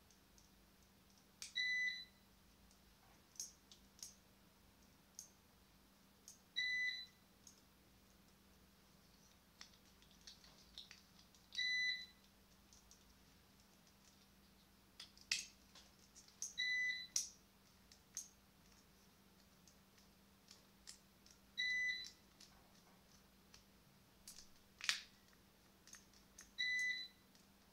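A short, high electronic beep sounds six times, evenly about every five seconds. Between the beeps come scattered sharp clicks and taps from a plastic power-tool trigger switch being handled, the loudest near the end.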